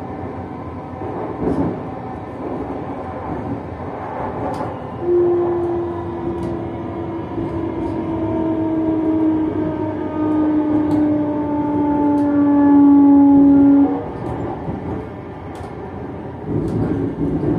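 Hitachi Class 385 electric multiple unit's traction motor whine, heard inside the carriage over the rumble of the running train. From about five seconds in, a clear tone with overtones sounds and slides slowly down in pitch, growing louder, then cuts off suddenly about fourteen seconds in. A few brief knocks come from the running gear.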